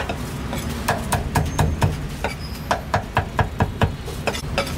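Rapid, even knocking from food preparation at a street stall, about four to five strokes a second.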